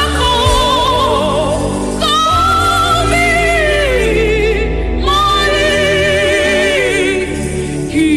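Gospel worship music: a solo voice sings long, held phrases with heavy vibrato over sustained low accompaniment, with new phrases beginning about two and five seconds in.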